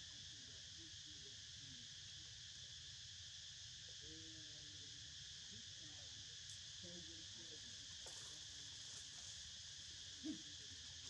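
Faint, steady chorus of insects, an unbroken high-pitched drone, with one brief sharp knock near the end.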